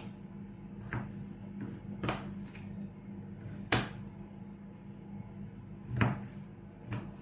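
Small florist's knife knocking on a cutting board as garlic cloves are sliced very fine: five separate sharp knocks at uneven intervals, the loudest about midway, over the steady low hum of a microwave oven heating milk.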